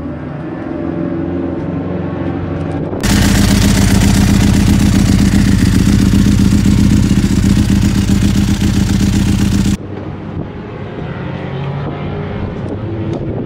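Ducati 996R's V-twin engine idling steadily. About three seconds in it turns suddenly much louder and harsher, heard right at the SIL Moto titanium silencer, then drops back sharply near ten seconds.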